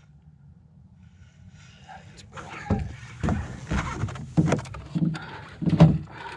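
Boat motor running with a steady low hum while trolling. From about two and a half seconds in, a run of loud, irregular knocks and thumps comes over it.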